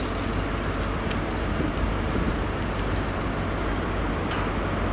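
Steady low rumble of trains moving on the tracks, with a few faint clicks about a second apart.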